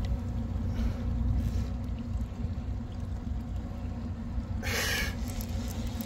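Boat motor running steadily with a low rumble, with short rushing noises about a second in and again near the end.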